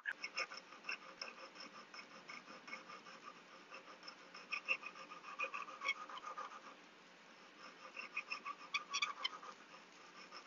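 Hand file rasping back and forth inside the drilled hole of a wooden ring blank, enlarging it to ring size, in quick repeated strokes that fade out briefly about seven seconds in and then resume.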